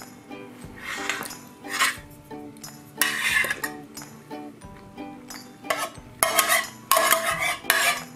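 Dishes and cutlery clattering in a string of irregular bursts, loudest in the second half.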